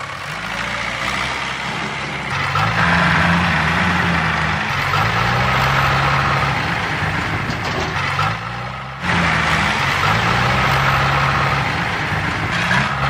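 Tractor engine running, a low-pitched steady engine note whose pitch wavers slightly; it breaks off briefly about nine seconds in and picks up again.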